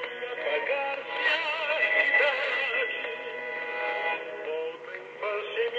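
Music with a singing voice from the Radio Nacional de Amazonia shortwave broadcast on 11780 kHz, received on a Tecsun PL-380 radio. The sound has no high treble.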